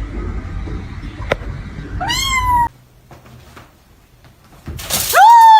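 A domestic cat meowing twice: a short meow about two seconds in, then a louder, longer one near the end. A single sharp click comes just before the first meow.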